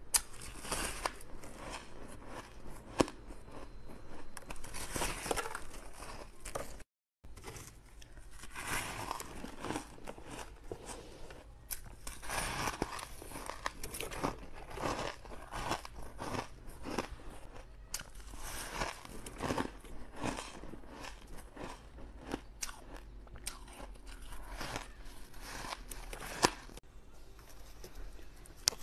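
Close biting and chewing of frosty ice: a dense run of crisp crunches and crackles as chunks are bitten off and chewed. There is a brief silent break about seven seconds in.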